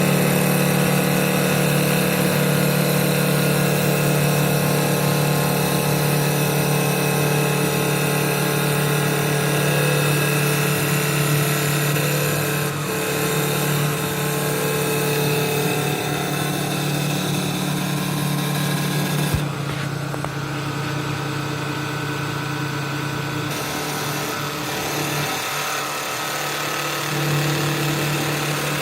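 CNC wood turning lathe with automatic loader running: a steady machine hum with a strong low tone and many fainter steady higher tones. About twenty seconds in, a single click, after which the low tone settles slightly lower.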